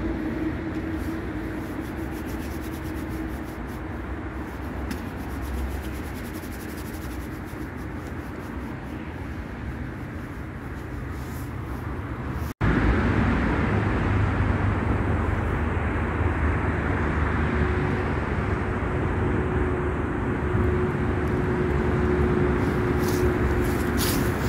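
Steady hum of busy road traffic. It drops out for an instant about halfway through and comes back louder.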